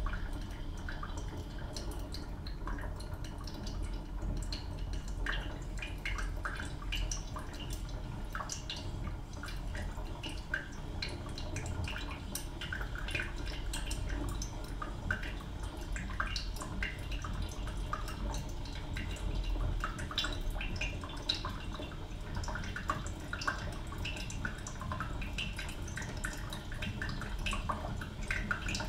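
East German Kaffee Boy K500 drip coffee machine brewing, with coffee dripping into the pot. Many small irregular drips and pops sound over a steady low rumble.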